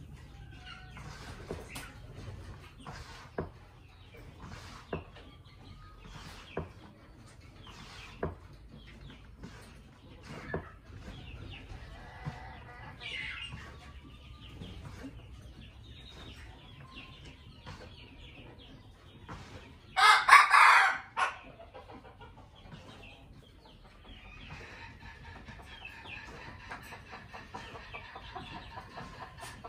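A young red junglefowl cockerel, just learning to crow, gives one harsh, raspy crow about a second long about two-thirds of the way through, breaking off abruptly at the end. Around it there is soft fowl clucking and sharp knocks about every one and a half to two seconds in the first half.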